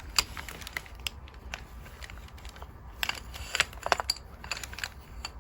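Crinkle paper crackling in irregular sharp crackles, thickest about three to four seconds in.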